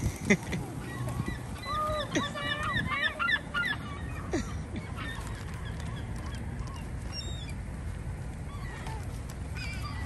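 A flock of gulls calling: many overlapping squealing calls in the first four seconds or so, thinning to scattered calls later, as the birds circle overhead.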